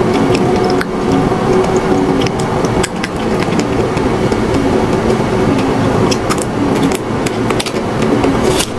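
Crisp cracking crunches of a strawberry ice cream bar's hard coating being bitten and chewed, a cluster of sharp cracks in the last few seconds, over a loud steady drone.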